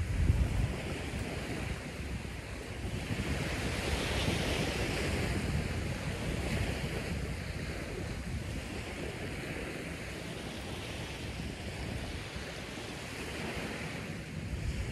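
Steady wind and surf noise that swells and eases every few seconds. There is low wind rumble on the microphone near the start.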